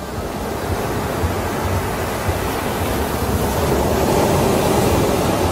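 Ocean surf: a steady rush of breaking waves that grows a little louder over the first few seconds.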